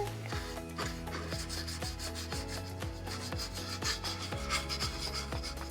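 Paintbrush scrubbing red paint onto a craft-kit piece in repeated rubbing strokes, over soft background music.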